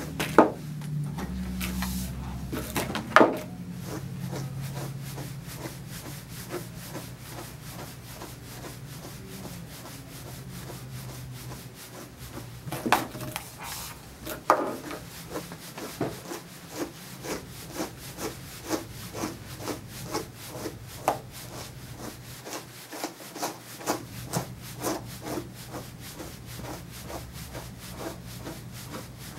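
A dog brush dragged through a long-haired dog's coat, a soft rubbing rasp with each stroke. The strokes come in an even rhythm of about two a second through the second half, with a few sharper, louder strokes near the start and middle.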